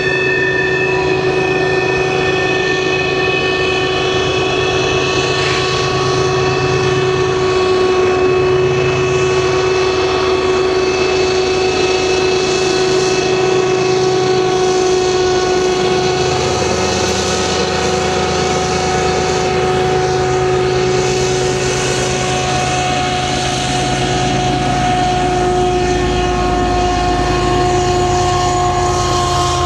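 BNSF diesel-electric freight locomotives working around a tight curve: a steady low engine drone with a sustained whine on top.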